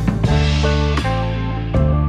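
Background music: an instrumental track with guitar and a steady drum beat.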